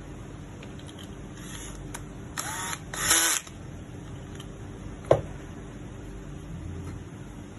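Handling noise from a pistol magazine being worked by hand: two short sliding scrapes close together, then a single sharp click about five seconds in, over a faint steady hum.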